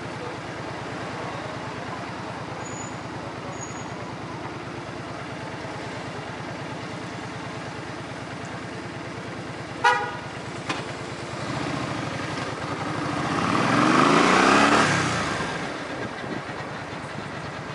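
A vehicle engine idling steadily, with a short horn toot about ten seconds in. Then a vehicle passes close by, its noise swelling and fading away, loudest about three-quarters of the way through.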